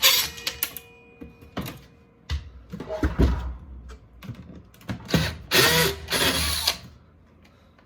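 Short bursts from a cordless Porter Cable drill backing out screws, mixed with clatter from handling sheet-metal and plastic panels. A sharp knock at the start leaves a faint metallic ring for about a second.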